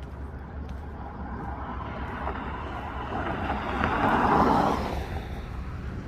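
A car passing by, its noise swelling to a peak about four seconds in and then fading, over a steady low rumble.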